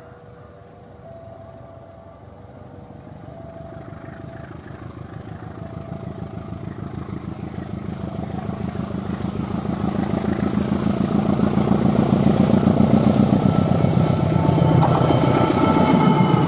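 CC203 diesel-electric locomotive hauling a passenger train, approaching and passing close, its diesel engine growing steadily louder with a fast pulsing beat. From about halfway, high thin wheel squeal joins in as the train takes the curve. Early on, a faint two-note tone alternates about once a second.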